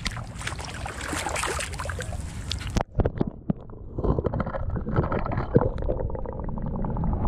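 Water splashing and sloshing as a flathead held in lip grips is lowered into shallow water. A little under three seconds in the sound suddenly turns dull and muffled as the microphone goes under the surface, with gurgling and scattered knocks heard underwater.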